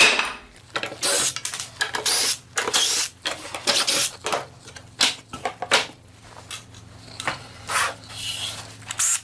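Short bursts of a cordless drill backing out screws, among irregular clatter and knocks of wooden parts being handled as a shop-built router lathe jig is dismantled.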